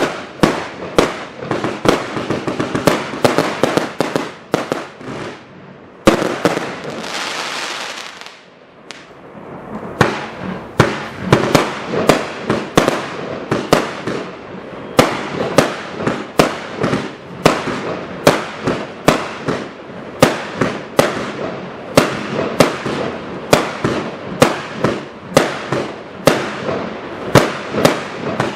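320-shot firework cake firing a rapid run of shots. About six seconds in, one loud bang gives way to a couple of seconds of hissing and crackling, then the shots resume at about two a second.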